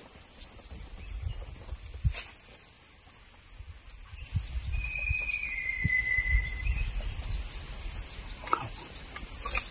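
Steady high-pitched drone of insects calling in the forest, with low rumbling underneath and a few light knocks near the end.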